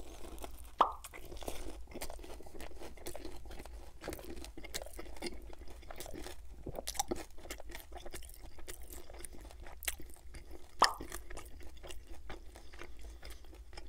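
Close-miked crunching and chewing of a crispy fried Vietnamese spring roll, the wrapper crackling in many small snaps as it is chewed. There are two louder, sharper crunches: one about a second in and one late on.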